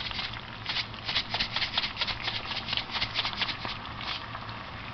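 Seafood sizzling in hot olive oil in a frying pan: a dense, uneven crackle and spitting.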